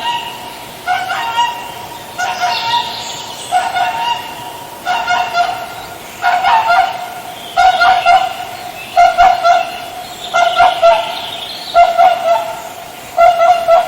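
Swan calling: short honking calls repeated in a steady series, about one every second and a half.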